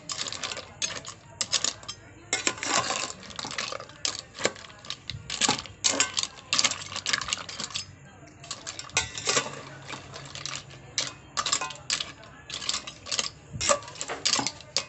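Metal spoon stirring mussels in a metal cooking pot: irregular clinks and clatters of the spoon against the pot and the mussel shells, a few a second.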